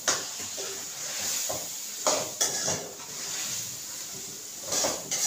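A spoon stirring and scraping in a metal pan, knocking against its side several times: once at the start, twice about two seconds in and again near the end. A steady hiss of the masala frying runs underneath.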